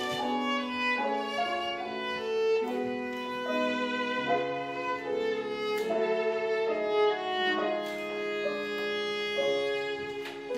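Viola bowed in a slow melody of long held notes, with piano accompaniment beneath.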